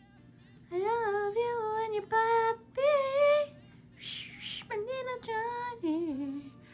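A woman's high, sing-song voice crooning short wordless phrases to a pet, in several bursts with gliding pitch. A short hiss-like burst sounds about four seconds in.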